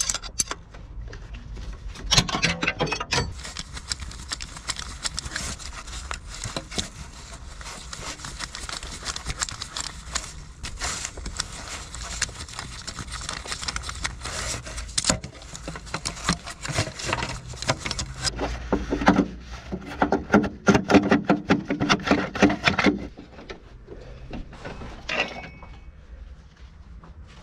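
Hand-tool work on a car engine: a long run of irregular metallic clicks, scrapes and rubbing, busiest about two seconds in and again from about nineteen to twenty-three seconds.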